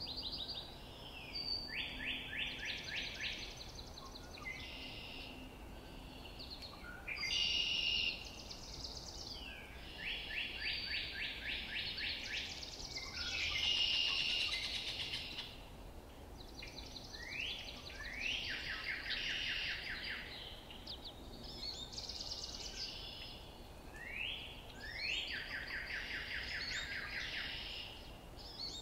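Several songbirds singing over one another, each song a quick trill of rapid notes, often led by a sweeping note, repeating every second or two. A faint steady background noise runs underneath.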